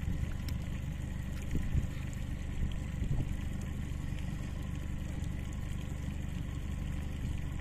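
A steady low motor rumble with a faint hum above it and a few light clicks.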